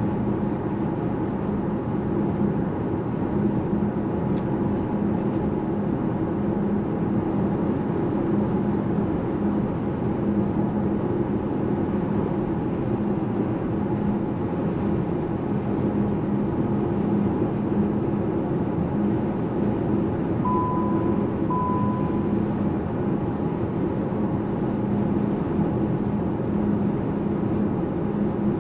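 Steady road and tyre noise of a Volkswagen ID.7 electric car driving at an even speed, with no engine sound. Two short high beeps, one after the other, about twenty seconds in.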